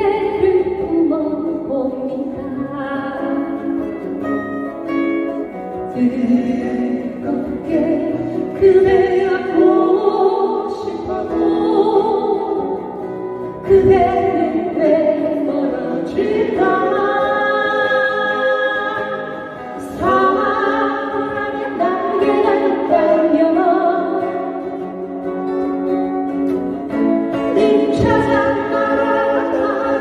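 A woman singing a song with two strummed acoustic guitars accompanying her, performed live through microphones.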